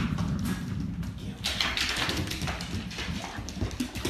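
A dog's claws clicking and clattering on a hardwood floor as it runs and scrambles, an irregular run of quick taps.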